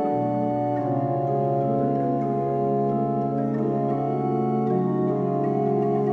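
Organ music: slow, sustained chords over a held bass note, the harmony shifting about a second in and again later on.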